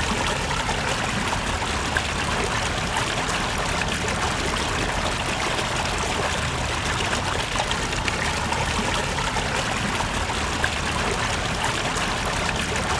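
Rainwater runoff running steadily, a continuous even rushing with no breaks, as storm water flows into the flooded ground and pond.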